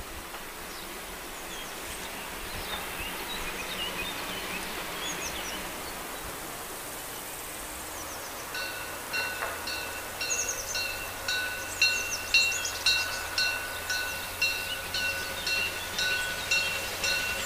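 Warning bell ringing in even strikes about twice a second, starting about eight seconds in: a railway level-crossing bell signalling the approaching train. Before it, faint outdoor air with a few bird chirps.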